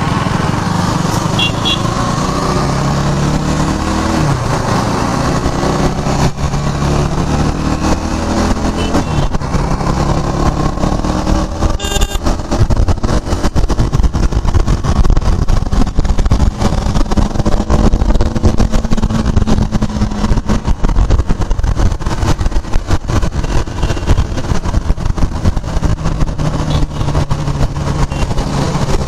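KTM Duke 390's single-cylinder engine running as the motorcycle is ridden away, its note rising through the gears over the first ten seconds or so. From about halfway, wind noise over the microphone grows louder as speed builds.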